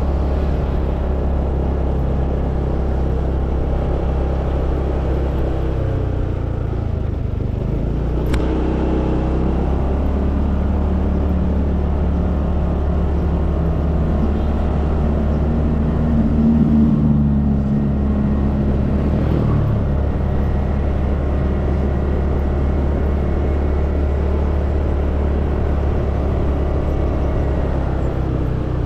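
Honda automatic scooter's small single-cylinder engine running under way, easing off about six seconds in, picking up again, and rising louder in the middle as it accelerates. A single sharp click sounds about eight seconds in.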